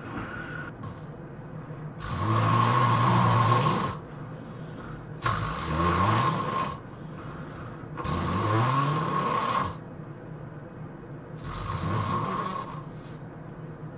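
A person snoring loudly: four long snores about three seconds apart, each rising a little in pitch, with quieter breathing between them.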